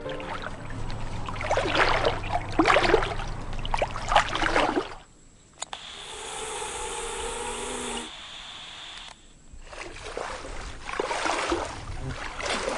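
Water splashing and sloshing as a person wades through shallow water, in two stretches. In between, about two seconds of steady hiss from a handheld two-way radio.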